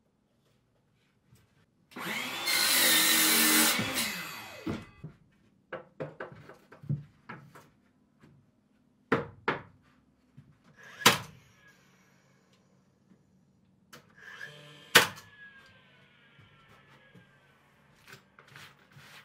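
A power tool runs for about two seconds, then comes a series of sharp knocks on wood, two of them loud, about four seconds apart, near the middle and the end.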